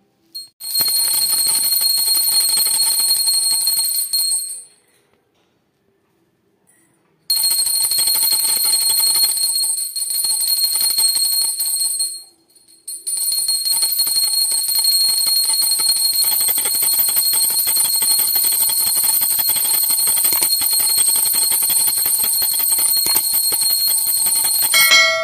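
Brass pooja hand bell rung fast and without pause in a bright, steady jangle. It stops for about three seconds a few seconds in and again briefly near the middle. Rung through the camphor aarti that closes the puja.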